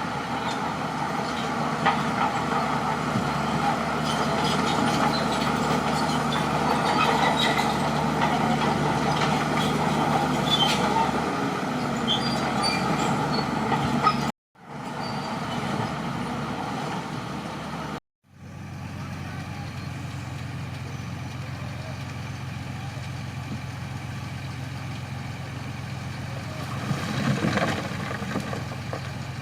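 Heavy diesel engines of crawler bulldozers running steadily under load, with scattered light metallic clinks in the first half. The sound cuts out abruptly twice.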